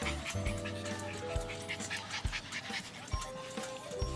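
A dog lapping water in quick, even laps, about four a second, over background music.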